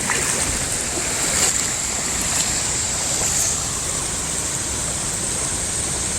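Powerful waterfall pouring close by: a steady, unbroken rush of falling water.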